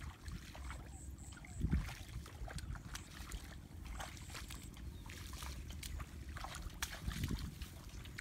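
Footsteps sloshing and splashing through shallow water and mud in a flooded rice paddy, with scattered small splashes and two heavier steps, one about two seconds in and one near the end. Wind rumbles low on the microphone throughout.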